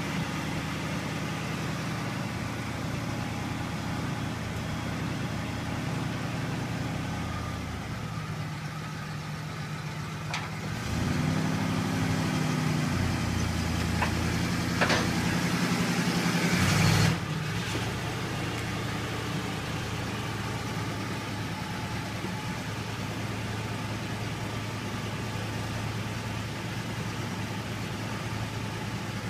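Vintage Jeep Gladiator pickup's engine idling, then running harder for several seconds with its pitch shifting, with a few sharp metal clanks, as it climbs steel loading ramps onto a car-carrier trailer. It drops back abruptly to a steady idle.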